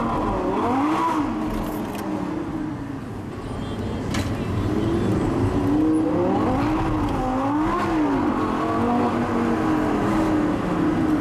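Supercar engine heard from inside the cabin, its pitch rising and falling several times as the car accelerates and lifts off in traffic, over a steady low road rumble.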